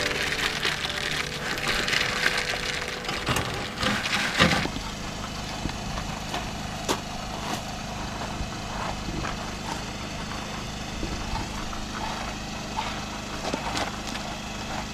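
Wet concrete being tipped and scraped from a wheelbarrow into a slab form: a dense scraping rush for the first four or five seconds, then scattered scrapes and knocks. A steady low engine hum runs underneath.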